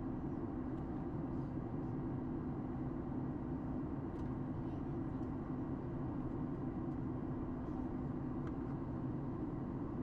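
Steady cabin noise of a Boeing 737 MAX 8 airliner descending on approach, heard inside the passenger cabin: an even rush of airflow and engine noise with a low hum, holding at a constant level.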